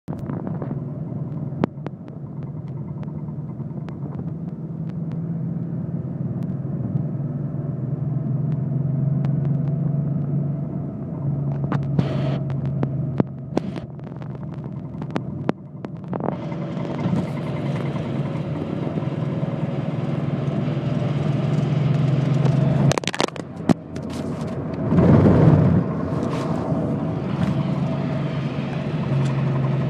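1984 Porsche 911's air-cooled flat-six engine running steadily, with irregular sharp clicks over the hum: a clicking noise whose cause is unknown. A brief louder rush comes about 25 seconds in.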